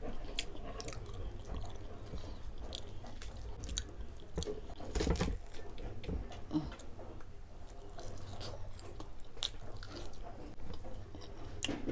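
Close-up chewing and biting into crispy lechon kawali (deep-fried pork belly), with many small sharp crunches and a louder cluster about five seconds in.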